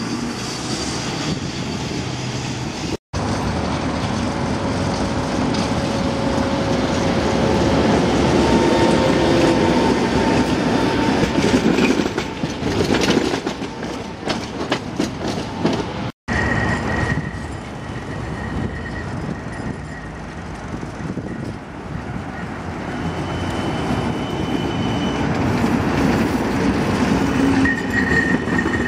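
Trams running past on street track, their wheels rumbling on the rails, in three separate passes with the sound cutting off briefly twice. Short high wheel squeals come in the later part.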